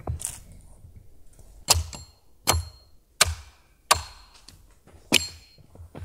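Axe chopping wood: six sharp strikes, most about two-thirds of a second apart, some with a brief high metallic ring.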